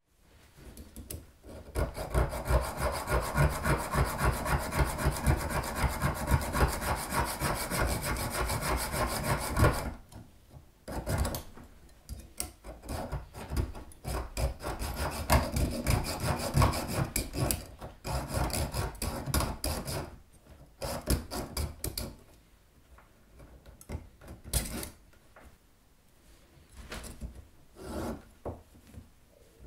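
Hacksaw cutting a metal spindle, rapid back-and-forth strokes. A long steady run of strokes is followed by a brief pause and a second run, then slower, quieter, broken strokes near the end.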